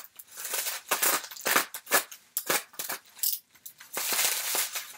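Bubble wrap and foil-lined packaging crinkling and crackling in quick irregular bursts as it is pulled open by hand.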